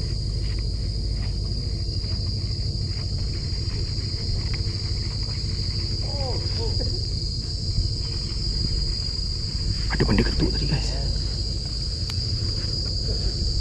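Steady high-pitched drone of insects from the mangroves, unbroken throughout, over a low rumble of wind on the microphone.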